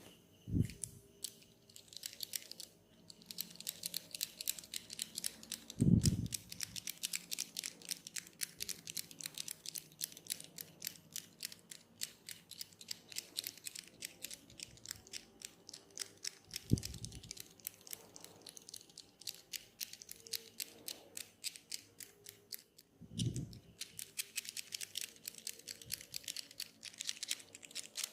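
Tok sen massage: a wooden mallet tapping a wooden wedge held against the body, in rapid, even clicks several times a second, with two short breaks. A few dull low thumps sound among the taps.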